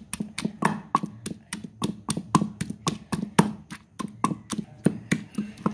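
Wooden pestle pounding chopped tomatoes in a stone mortar, a steady run of knocks about three to four a second as the tomatoes are crushed into paste.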